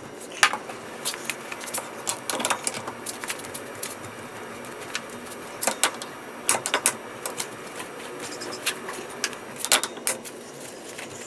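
Irregular metallic clicks and taps of hand tools on the rear hub nut of a Ford Focus as it is tightened, with a couple of short squeaks.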